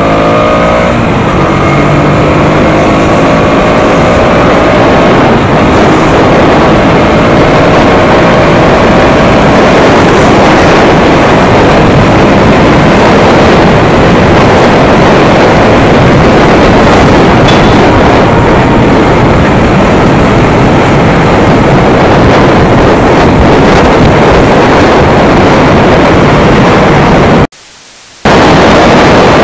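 Motorcycle engine accelerating with rising pitch over the first few seconds, then a loud steady rush of wind over the microphone at road speed that all but covers the engine. About two seconds before the end the sound drops out sharply for under a second.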